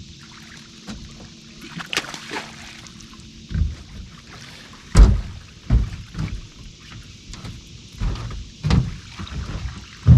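Irregular knocks and thumps against a fishing boat's hull, about half a dozen, the loudest about halfway through, with a little water sound between them.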